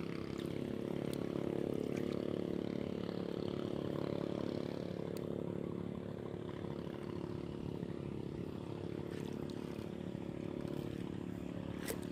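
A small boat's motor running steadily, easing off slightly about halfway through, with a sharp click near the end.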